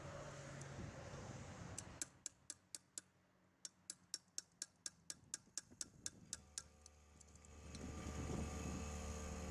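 A run of sharp, evenly spaced clicks, about five a second, stopping about six and a half seconds in; a steady low hum starts just before and grows louder.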